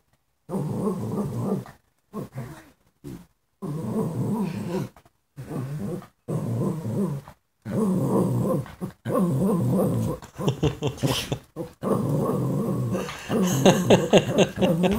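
Small shichon (shih tzu–bichon cross) dog begging for food with a string of low, growl-like vocal grumbles, each about a second long with short pauses between, getting louder and sharper near the end.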